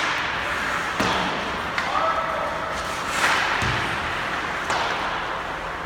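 Ice hockey play echoing around an indoor rink: several sharp knocks of sticks and puck on the ice and boards, with a heavier thud about midway, over distant players' shouts.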